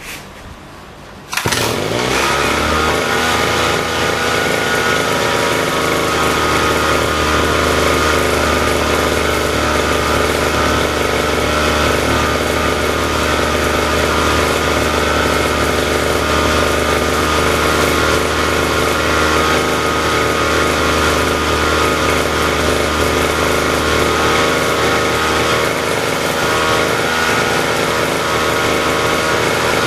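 Small lawn-mower petrol engine starting about a second and a half in, its pitch climbing briefly as it catches, then running steadily at an even speed.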